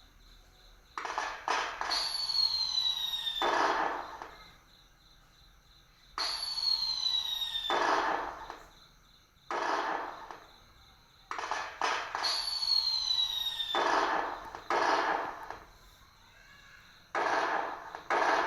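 Firework sound effects played by an LED firework tree: each cycle is a sharp launch, a high whistle falling in pitch, then a crackling burst that fades. The cycle repeats about every five to six seconds.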